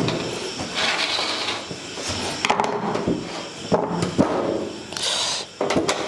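Handling noise from work inside a desktop computer's metal case: irregular scraping with several sharp clicks and knocks, as screws and a screwdriver are handled around the hard drive bay.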